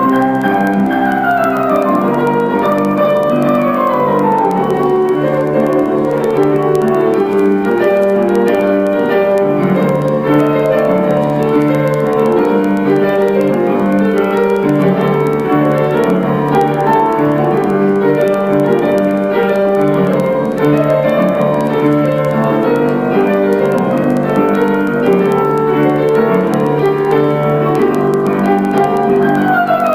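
Live tango music from a small ensemble led by piano, with bowed strings. Falling runs sound in the first few seconds and again at the very end.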